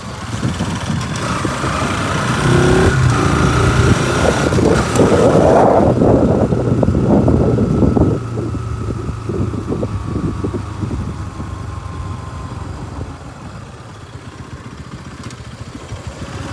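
Bajaj Pulsar NS200 single-cylinder engine through its stock exhaust, revving up and getting louder over the first several seconds. It drops back sharply about eight seconds in, runs lower and quieter, then picks up again near the end.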